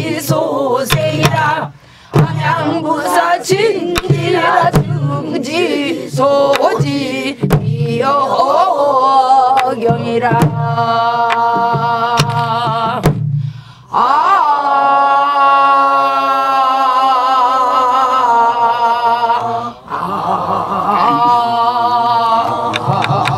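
Namdo folk singing (ipchang): voices singing in unison, led by a woman, with sharp strokes of buk barrel drums marking the beat. From about 14 seconds in the voices hold long, sustained notes with fewer drum strokes.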